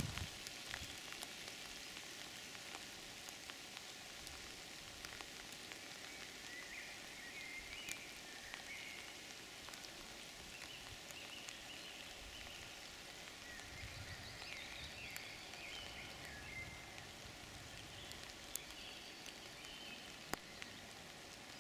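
Quiet woodland ambience: a steady faint hiss with distant birdsong, and a few soft ticks.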